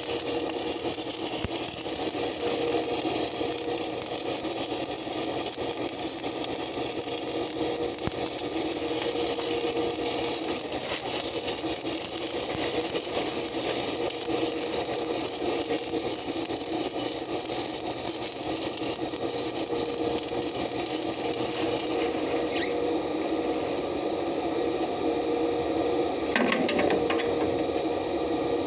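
Stick (shielded metal arc) welding on the steel of a backhoe arm: a steady crackling, sizzling arc with a constant hum underneath, running without a break.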